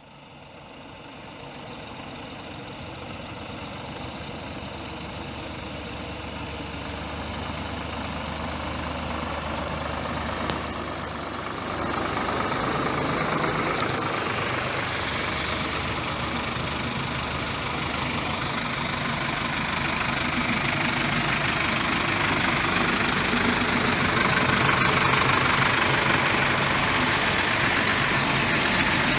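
Diesel engines of a convoy of farm tractors running as they approach, growing steadily louder, with a step up in loudness about twelve seconds in.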